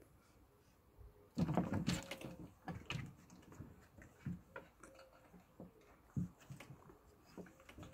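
Kittens scuffling on wooden decking: a quick flurry of paw and claw taps and knocks about a second and a half in, then scattered single taps as they play.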